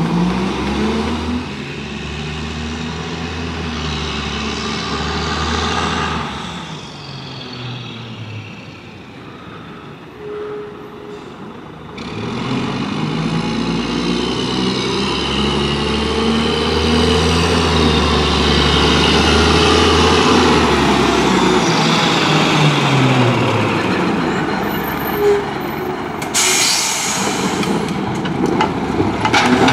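Mack MR McNeilus rear-loader garbage truck's diesel engine pulling away and accelerating, its note rising and falling several times, and running closer and louder in the second half. A short sharp air-brake hiss comes about three-quarters of the way through as the truck stops.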